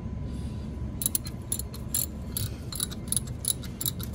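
A 3/8-inch ratchet with a 14 mm socket clicking as it swings back and forth, backing out a starter mounting bolt. The clicks are sharp and irregular, several a second, and start about a second in, over a low steady rumble.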